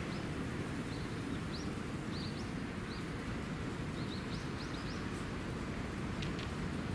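A small bird chirping: a quick series of short, high, upward-flicking chirps over a steady low rumble of wind and distant traffic, the chirps stopping a little over five seconds in.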